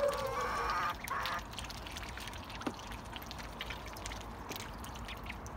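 Ducks calling: two harsh calls within the first second and a half, followed by a low background with scattered faint clicks.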